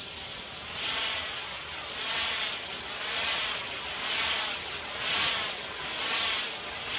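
Firework gerbs (spark fountains) on a rotating pyrotechnic set piece: a rushing hiss that swells and fades about once a second as the spark jets swing round.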